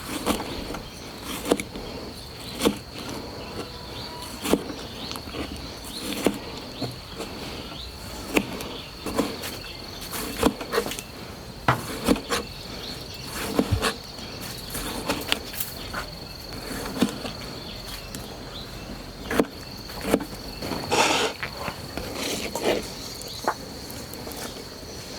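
Crickets trilling in one steady high note, with irregular knocks and clicks throughout.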